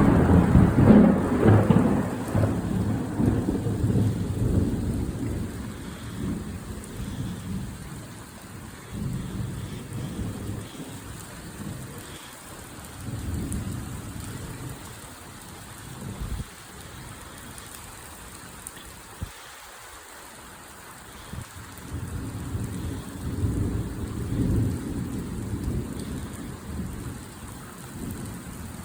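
A thunderclap starts suddenly right at the start and rumbles away over several seconds, then rolls of thunder swell again a few more times, over steady torrential rain.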